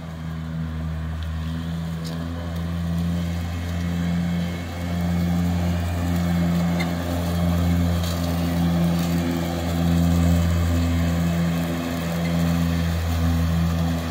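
Electric-converted lawn tractor running as it is driven across grass: a steady low hum from its electric motor and belt drive, dipping briefly now and then.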